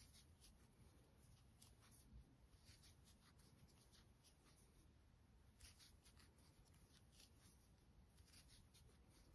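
Very faint, irregular scratchy ticks of a metal crochet hook drawing black yarn through single crochet stitches, otherwise near silence.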